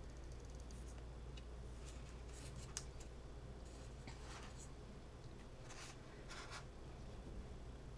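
Faint rustling and scratching of cotton fabric squares being handled, folded and pinned by hand, with a few small ticks in the middle and two longer rustles in the second half, over a low steady hum.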